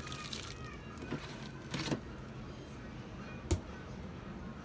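Food being taken out of an open refrigerator: a few soft handling knocks over a steady background hiss, and one sharp knock about three and a half seconds in.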